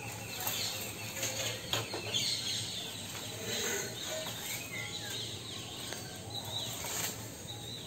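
Birds chirping faintly over quiet rural outdoor ambience, with a couple of light knocks, one about two seconds in and one near the end.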